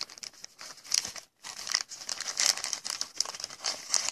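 Foil wrappers of sealed trading-card packs crinkling as a stack of them is handled and squeezed, to feel which packs are thicker, a sign of a bulky hit card inside. A run of irregular crackles with a brief pause about a second in.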